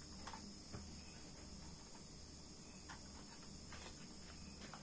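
Faint small clicks and taps of an oscilloscope probe being clipped onto an amplifier circuit board, over a steady low hum and a high-pitched hiss.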